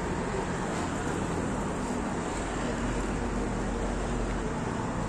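Steady low rumble and hiss of background noise, like distant road traffic, with no distinct knocks or strokes.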